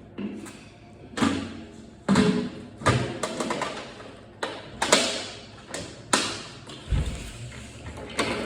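A series of irregular hollow thumps and knocks, about one a second, each ringing briefly: the plastic tank of a Stanley 4-gallon wet/dry vacuum being handled while it is emptied.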